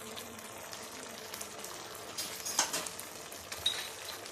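Thick milk-and-cornflour sauce bubbling and sizzling in a nonstick frying pan, with a few sharp pops about two and a half and three and a half seconds in.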